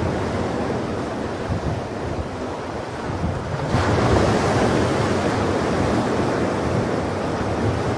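Sea surf: waves washing in on a shore, with a wave breaking about four seconds in and its louder wash carrying on.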